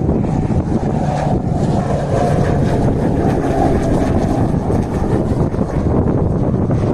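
A Beechcraft T-6 Texan II's turboprop engine and propeller drone steadily as the aircraft passes low overhead. Wind rumbles on the microphone underneath.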